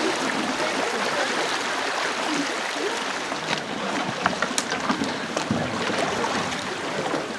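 Shallow river water rushing steadily over a stony riffle, with a few short sharp knocks about three and a half to four and a half seconds in.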